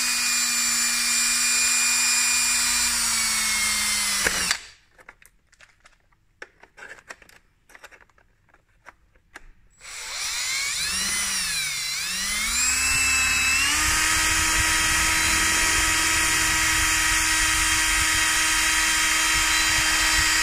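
Cordless drill boring a hole through a motorcycle helmet's shell. The motor whines steadily, stops suddenly about four and a half seconds in, and after a quiet gap with a few light clicks starts again around ten seconds. Its speed wavers up and down on the trigger, then settles to a steady, higher whine from about fourteen seconds on.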